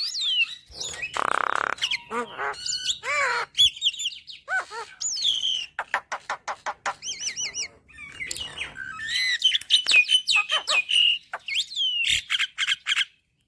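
Javan myna singing a varied, non-stop song of whistled glides, chirps, harsh rasping notes and fast clicking rattles, which cuts off abruptly near the end.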